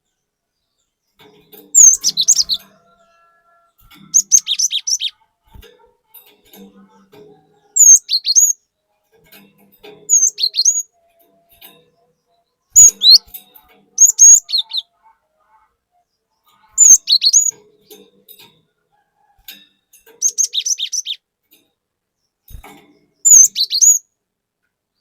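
Cinereous tit (glatik batu) singing: about nine short phrases of sharp, high chirping notes, each under a second long, with pauses of a few seconds between.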